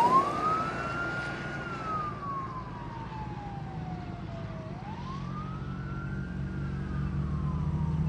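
Emergency vehicle siren on a slow wail, rising and falling twice and fading as the vehicle moves off. A low engine rumble grows louder near the end.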